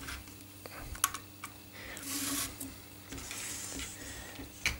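Faint handling noise of hands working a toothed drive belt around a plastic-and-steel-rod frame: soft rubbing and rustling with a few small clicks, one about a second in and one near the end.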